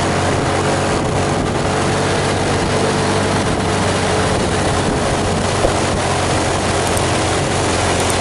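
A vehicle engine running at a steady drone under a constant loud hiss of wet-road and rain noise.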